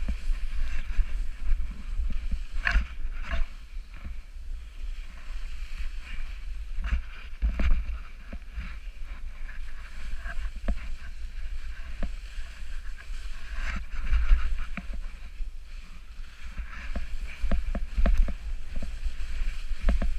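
Wind buffeting an action camera's microphone in an uneven low rumble, with irregular scraping and crunching of a snowboard on snow and a few knocks.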